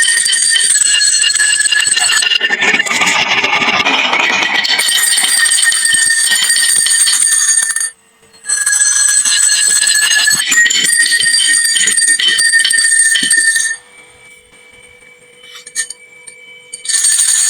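Many glass marbles clattering and rolling down a wooden marble run and into toy trucks, a dense rattle with steady ringing tones over it. It breaks off briefly about 8 s in and resumes, then dies away near 14 s to a few scattered clicks.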